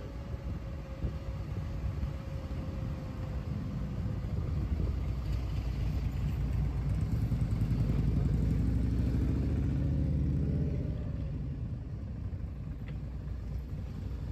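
Motorcycle engine running, heard from the rider's seat together with road and wind noise. It grows louder through the middle, pulling through a turn, and eases off again near the end.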